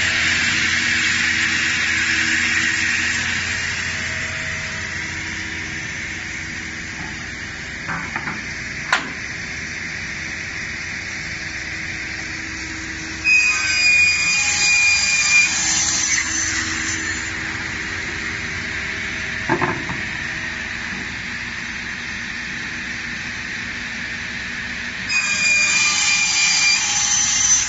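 Sliding-table panel saw running with a steady whine. Twice, about halfway through and again near the end, it cuts through a panel, and each cut brings a few seconds of louder, higher sawing. A few sharp knocks come in between.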